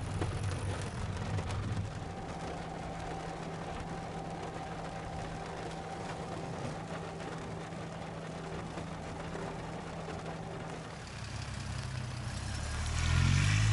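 Mitsubishi Outlander PHEV driving at expressway speed: steady road and drivetrain noise with a low hum. Near the end it grows louder and rises in pitch.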